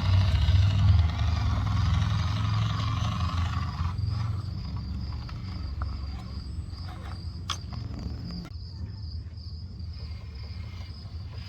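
FMS Atlas 6x6 RC truck's electric motor and drivetrain running, loudest at first and fading after about four seconds as the truck drives away. A single sharp click about seven and a half seconds in.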